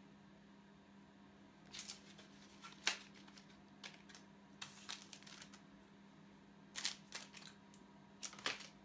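Scattered clicks, taps and short rustling scrapes of kitchen utensils and packaging being handled, over a steady low electrical hum.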